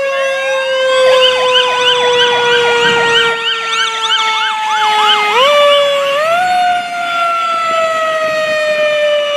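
Fire apparatus air horn blaring in long held blasts, its pitch sagging slowly and stepping up twice about five and six seconds in. From about one second in to about five, an electronic siren sweeps up and then yelps rapidly, rising and falling about three times a second.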